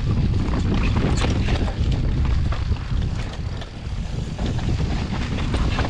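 Wind rumbling and buffeting on the microphone of a moving bicycle, with scattered light clicks and rattles.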